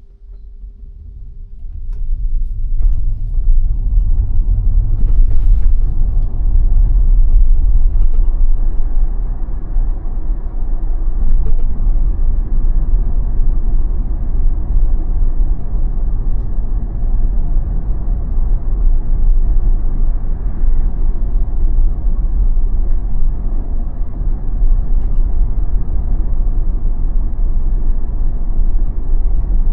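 Steady low road and tyre rumble of a Tesla driving on Full Self-Driving. It rises out of a quiet start over the first three seconds and then holds steady and loud.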